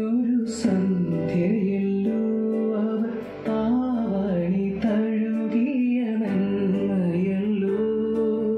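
A song with a singing voice over guitar, played back through a homemade power amplifier and loudspeakers as a test of the amplifier.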